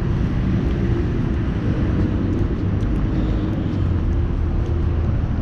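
Steady low rumble of outdoor city ambience, with a faint steady hum that fades near the end.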